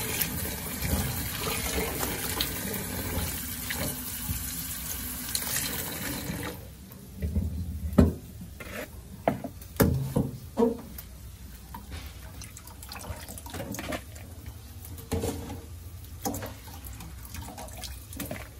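Tap water running into a sink while hands squeeze and wash sliced banana heart in a stainless steel bowl. The running water stops about six and a half seconds in, giving way to splashes and a few sharp knocks as a mesh strainer scoops the pieces out of the bowl.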